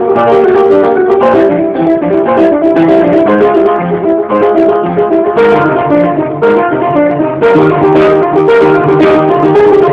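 Instrumental music of plucked guitar with piano, a steady run of notes throughout.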